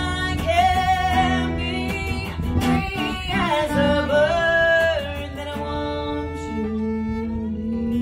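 Live acoustic music: a Fender steel-string acoustic guitar strummed under a violin playing the melody, with sliding notes early on and long held notes in the second half.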